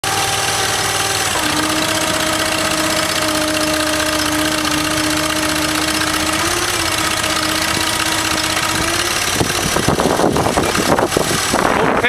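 Kohler Command 25 hp V-twin engine of a truck-mounted Bradco backhoe running steadily and driving the hydraulics as the boom is swung and lowered, with a steady whine from about a second and a half in. Irregular knocks and clatter over the last couple of seconds.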